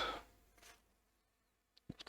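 Near silence: faint room hiss in a pause between words.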